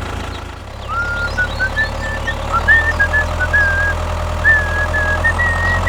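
A small engine running steadily, its low hum growing louder about two and a half seconds in, with a high line of short warbling notes above it.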